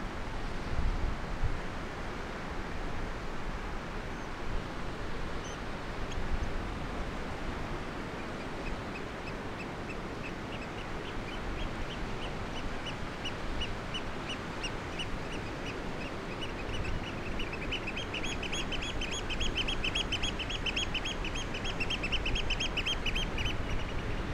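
A bird calling in a rapid series of short, high piping notes, starting about a third of the way in and getting faster and louder near the end. Steady wind and water noise lies underneath.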